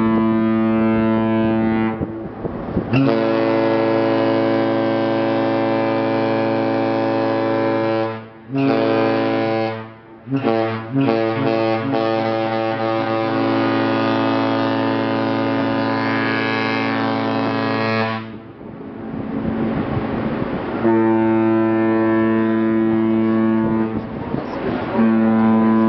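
Cruise ship horns sounding a series of long, deep, steady blasts, the longest lasting about seven seconds, with short breaks between them: Holland America ships exchanging horn signals as they leave port.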